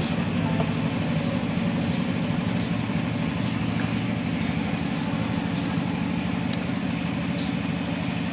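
An engine running steadily nearby: an even low hum that does not change, with a few faint ticks over it.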